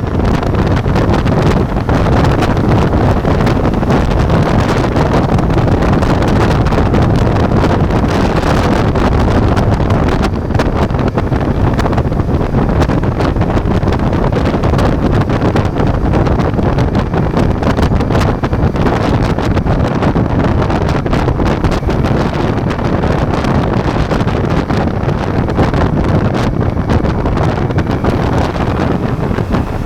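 Ducati Multistrada V4 motorcycle under way, its V4 engine running under heavy wind noise on the microphone, steady throughout.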